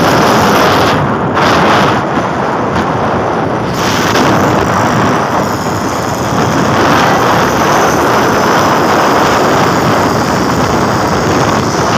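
Steady, loud rush of wind on the microphone mixed with engine noise from vehicles moving at speed alongside a racing auto rickshaw.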